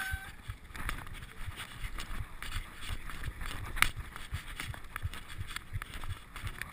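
Mountain bike clattering down a rough forest trail: tyres on dirt and roots, with irregular knocks and rattles from the bike over the bumps and a sharp knock about four seconds in.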